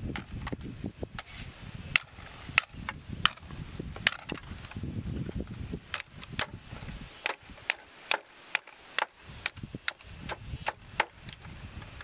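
A large knife chopping and trimming dry bamboo poles: sharp, irregular woody knocks, about two a second, starting about two seconds in.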